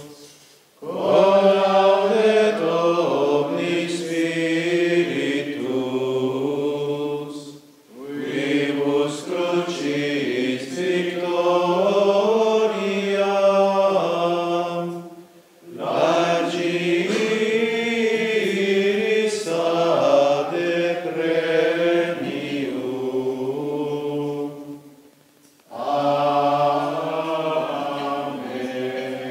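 A group of Franciscan friars and nuns singing Latin plainchant together. They sing four long phrases, each followed by a short pause for breath.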